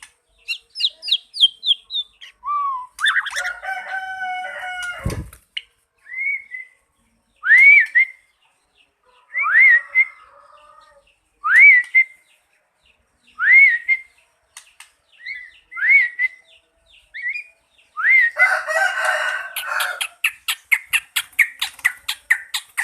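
White-rumped shamas calling: a short rising whistle repeated about every two seconds, two longer calls with several pitches, one near the start and one a few seconds before the end, and rapid chattering near the end.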